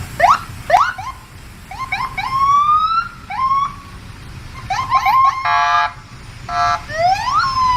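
Police siren: a string of rising whoops and yelps, some held at the top. Two short buzzing horn-like blasts come in the second half.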